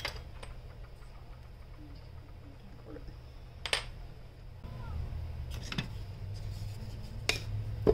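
Kitchen handling noises: a few sharp clicks and clinks of utensils against the mixing bowl and counter while flour is being measured. A low hum comes in about halfway through.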